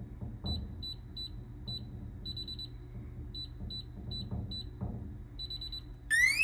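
Blacksmith rifle safe's electronic keypad beeping at each fingertip press as guessed passcodes are entered, each short run of key beeps ending in a longer beep. Near the end the safe's alarm goes off, a loud siren sweeping up and down in pitch, set off by the wrong-code attempts.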